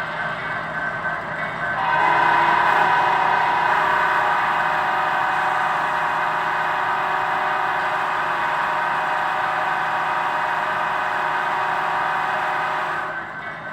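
Sound-equipped HO scale model locomotive blowing a long, loud air-horn chord of several notes through its small onboard speaker, starting about two seconds in and cutting off near the end, over a steady background hum.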